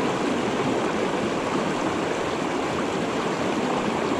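Swollen mountain river rushing over rocks and riffles: a steady, even rush of running water.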